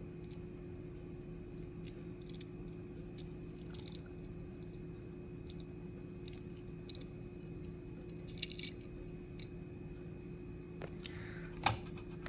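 Faint steady electrical hum with scattered small clicks and taps from handling. Two sharper clicks come near the end.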